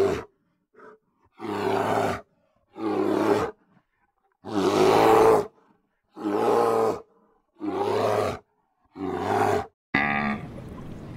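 A big cat giving a run of about six short roars, each under a second long and about a second and a half apart.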